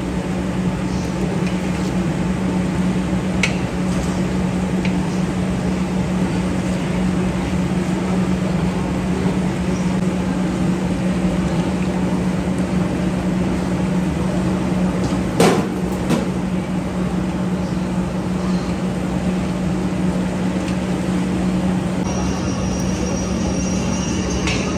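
Steady mechanical hum and rushing noise of a commercial kitchen's gas range and ventilation, with a few sharp knocks of metal on a steel pot, the loudest a little past halfway.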